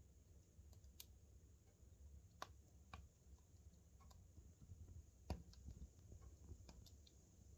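Burning wood log crackling faintly: scattered sharp pops and snaps at irregular intervals, the loudest about five seconds in, over a faint low rumble.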